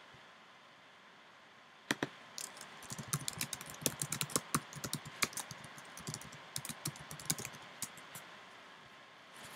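Typing on a computer keyboard: one click about two seconds in, then a quick run of keystrokes for about six seconds that stops near the end.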